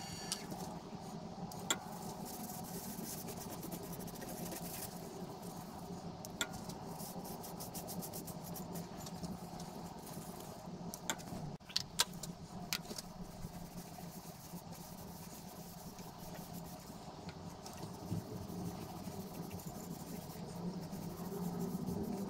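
Wood lathe motor running with a low, steady hum while a cloth is held to the turning bowl. A few sharp clicks and taps come through, several of them close together about halfway.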